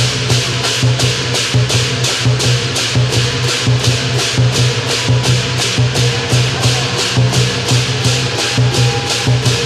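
Chinese drum-and-cymbal percussion playing a fast, steady beat, with the cymbals clashing about four times a second.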